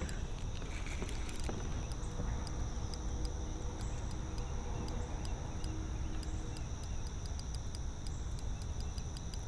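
Steady high-pitched insect chorus with many short, sharp clicks at irregular spacing, over a low rumble.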